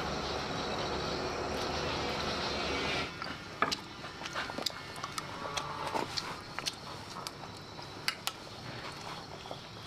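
A steady rushing noise cuts off suddenly about three seconds in. Scattered light clicks and taps of chopsticks against a bamboo tray and a bowl follow.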